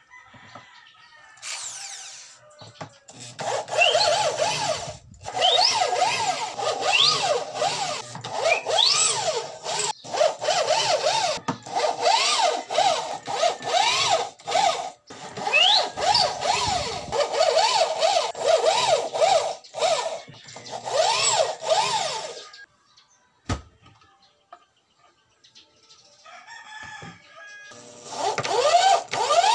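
Cordless drill driving screws into a speaker cabinet, its motor whine rising and falling in repeated bursts with short pauses. It stops for a few seconds, then starts again near the end.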